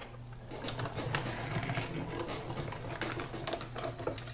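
Sizzix Big Shot die-cutting and embossing machine cranked by hand, its platform with an embossing folder and cutting pad rolling through the rollers. It makes a continuous run of small clicks and creaks.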